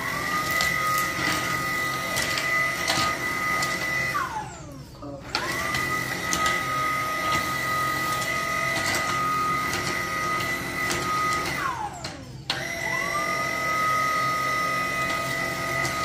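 Tineco cordless stick vacuum running with a steady high whine, switched off and back on twice: each time the whine falls away as the motor spins down, then rises again as it spins back up. Scattered clicks and knocks from the floor head on the tile.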